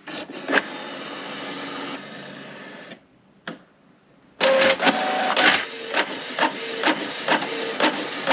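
Canon Pixma MG2522 inkjet printer running a print job, loud. A steady motor whir for about three seconds, a brief pause with a single click, then the print head carriage shuttles back and forth with sharp clacks about twice a second over a motor whine as the page feeds out.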